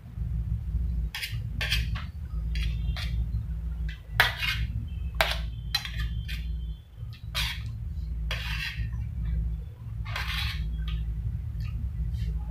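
A steel spoon scraping and clinking on a stainless steel plate as fried rice is scooped up, a dozen or so separate scrapes and clinks, with chewing between them. A steady low hum runs underneath.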